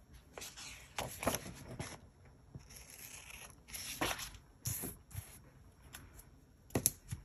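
Paper rustling in short, scattered bursts, with a few light taps, as a planner page with a torn strip of purple paper stuck along its top is handled, pressed down and slid onto a wooden desk.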